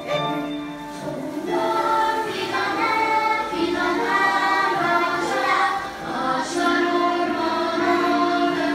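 A children's song: a group of voices singing a melody together over music.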